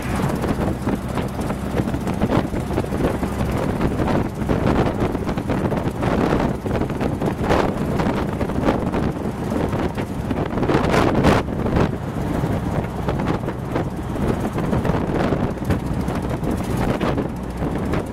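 Open dune buggy driving along a road: its engine running under heavy wind buffeting on the microphone, with a few louder gusts about seven and eleven seconds in.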